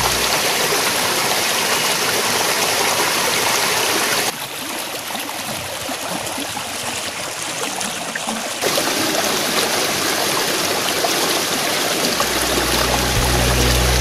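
Water of a small rocky stream rushing and splashing over boulders in a steady rush, which drops quieter for about four seconds in the middle. Music with a deep bass comes in near the end.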